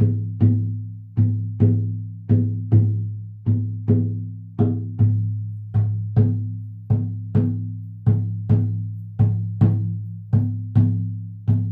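Large hand-held frame drum struck with a padded beater in a steady heartbeat-like double beat, two strikes a little under half a second apart, the pair repeating about once a second. Each strike gives a deep ringing boom that fades before the next.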